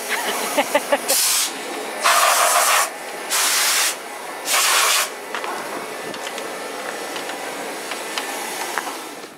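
Closed-cell spray foam gun hissing in four short bursts, each about half a second to a second long, followed by a steadier, quieter rushing noise.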